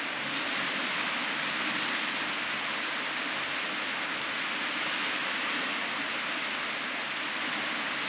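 Steady hiss of small surf breaking on a sandy beach.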